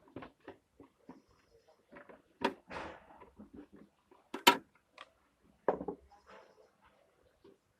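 Irregular plastic clicks and knocks as the front panel of a Luminous inverter's casing is worked loose and pried off. There are three louder sharp knocks, the loudest a little past halfway.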